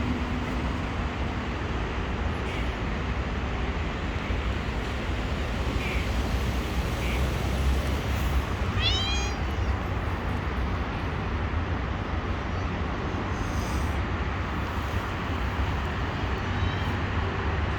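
A cat meowing, with one clear meow about nine seconds in and a few fainter short calls before it, over a steady low background rumble.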